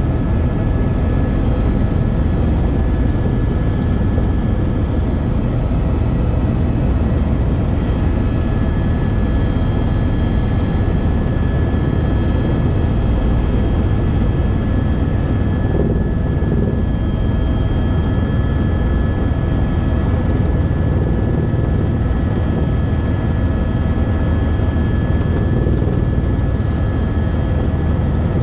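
Helicopter in flight heard on board: a steady, loud low rumble of the rotors and engine, with a few thin, unchanging high tones running over it.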